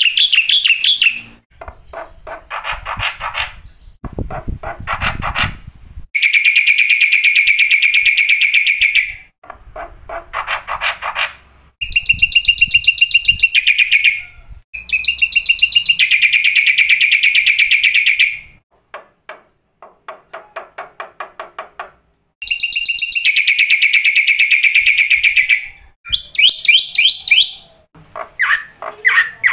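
Black-winged starling (jalak putih) singing: a run of loud phrases of fast, rattling repeated notes, each phrase two to three seconds long, with short pauses between them.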